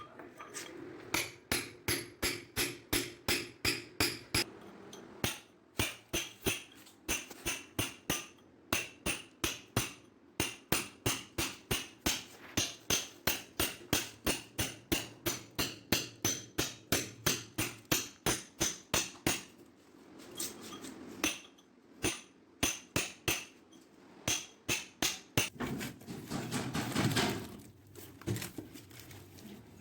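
Hammer blows struck steadily, about three a second with a few short pauses, as the floor is broken open around an old bathroom P-trap. Near the end the blows give way to a rough scraping, crunching sound.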